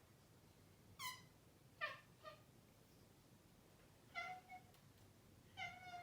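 Maine Coon cat chirping: about six short, clipped chirps coming singly or in quick pairs, some dropping sharply in pitch.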